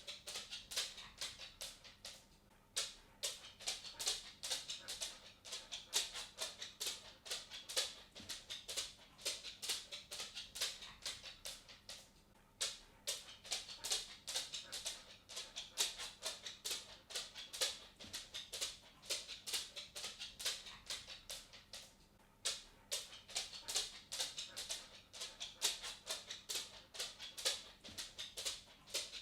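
A dog's claws clicking on a wooden floor as it walks, a quick, uneven run of sharp ticks that stops briefly three times.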